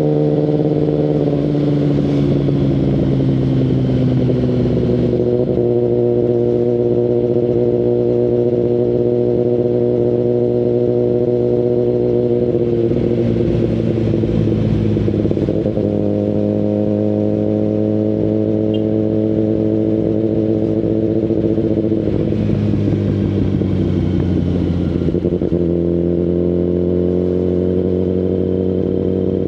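Kawasaki Ninja ZX-10RR's inline-four engine running through an Akrapovic Evolution Line carbon full exhaust while riding. The engine note eases down and picks up again several times as the speed and gears change.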